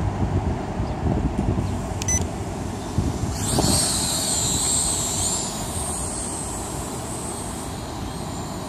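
Small quadcopter drone's propeller motors spinning up about three and a half seconds in: a high whine that holds for a couple of seconds, then fades to a fainter whine. Wind rumbles on the microphone throughout, with a short beep about two seconds in.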